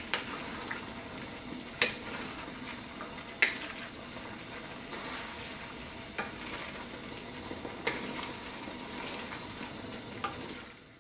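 Chicken and mixed vegetables sizzling in a hot nonstick pan while being stir-fried with a wooden spatula, which knocks sharply against the pan a handful of times at uneven intervals. The sizzle fades out near the end.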